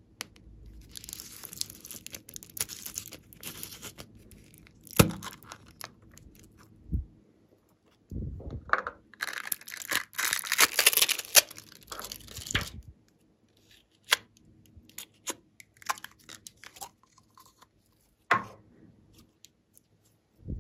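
Plastic slime tub being opened: the lid snaps, and the plastic seal is peeled off with a long crinkly tearing sound about halfway through. Scattered clicks and a sharp knock of plastic follow.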